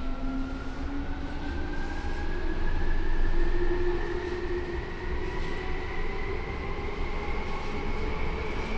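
Seibu 9000 series electric train's Hitachi IGBT VVVF inverter and traction motors whining, several tones rising steadily in pitch as the train accelerates, over the rumble of the running gear.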